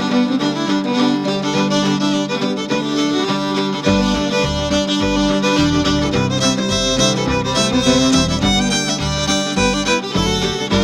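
Background music led by fiddle, with a bass line and beat coming in about four seconds in.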